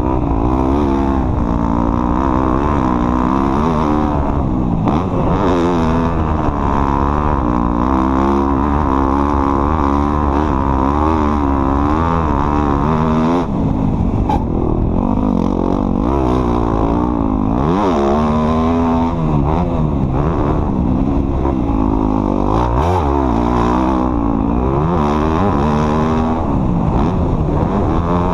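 Off-road vehicle engine running hard, its pitch rising and falling constantly as the throttle opens and closes while it is driven over rough ground.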